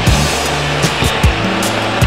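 Background music with a bass line and drum hits.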